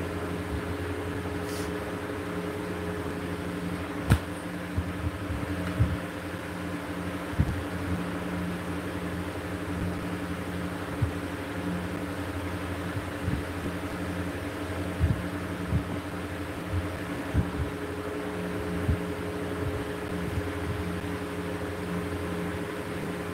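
Steady low mechanical hum made of several even tones, broken by scattered soft knocks and a sharp click about four seconds in.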